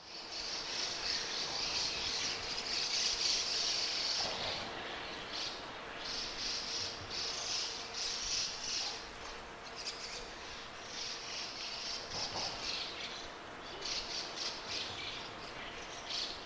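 Birds chirping and calling in repeated bursts of a second or two each, with a faint steady tone underneath.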